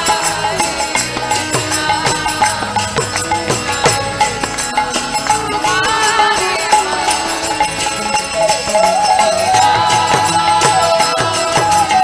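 Devotional Hindu kirtan-style music: a melody line over a busy, steady percussion beat.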